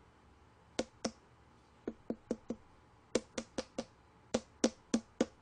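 A small apple watermelon tapped with the fingers to judge its ripeness by the sound: sharp taps in quick groups of two to five, about four a second, with short pauses between the groups.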